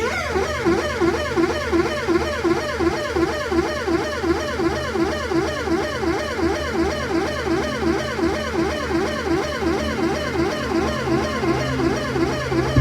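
Electronic, effects-processed music: a pitch sweep repeating about three times a second over a low steady drone.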